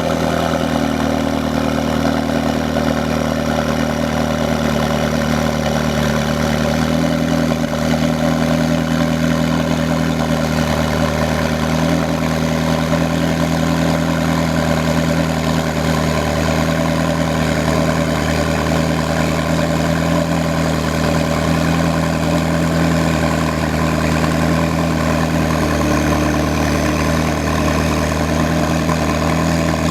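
McLaren sports car engine idling steadily. The idle speed shifts slightly a few times, about a second in, around seven seconds in and near the end.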